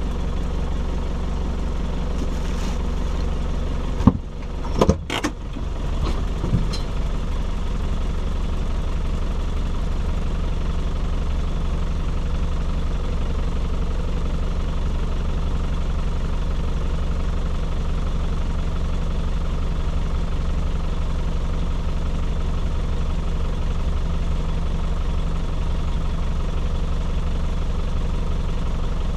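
Off-road vehicle's engine idling steadily while the vehicle stands still, with a few sharp knocks about four to five seconds in.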